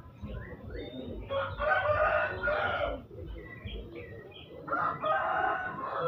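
A rooster crowing twice, each crow about a second and a half long, with short high chirps of other birds in between.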